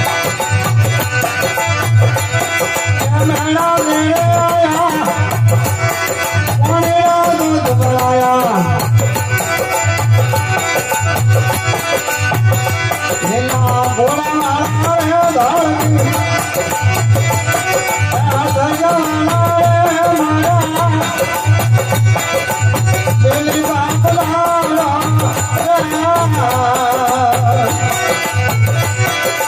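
Devotional folk bhajan music: a steady low drum beat about once a second under a wavering, gliding melody.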